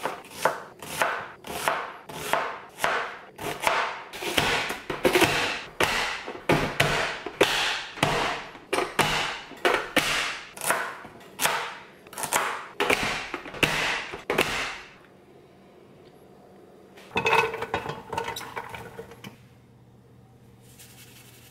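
An onion being chopped: a quick run of sharp knife chops on a cutting board and clacking presses of a push-down vegetable chopper, about two to three a second, stopping about fifteen seconds in. A short burst of noise follows a couple of seconds later.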